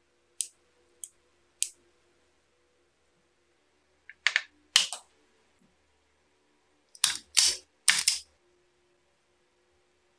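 Small plastic panel switch clicked three times, about half a second apart, followed by two clusters of louder knocks and scrapes of handling.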